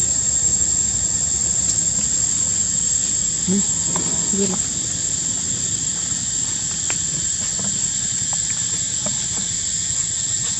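Steady, high-pitched drone of insects, with a few faint clicks.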